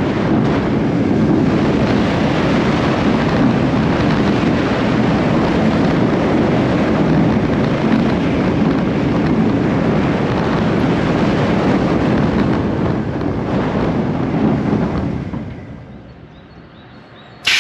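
Wind rush on the microphone and the rumble of a Vekoma roller coaster train's wheels on steel track as it runs at speed, heard from a rider's seat. The noise dies away about fifteen seconds in as the train slows.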